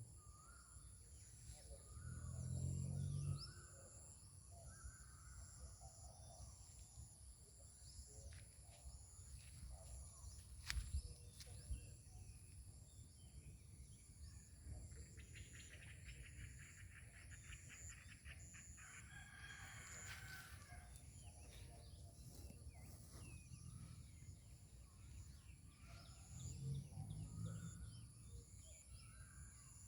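Quiet rural outdoor ambience: scattered bird calls, a rapid trill lasting a few seconds about halfway through, and a steady high whine underneath.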